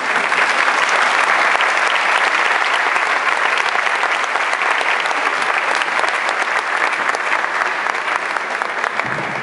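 Theatre audience applauding: many hands clapping at once, starting suddenly and dying down near the end.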